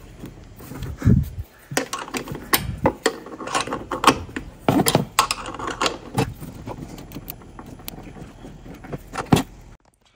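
Hand wrench working a small steel bolt into the engine's mounting bracket: irregular metallic clicks and clinks of the tool on the bolt.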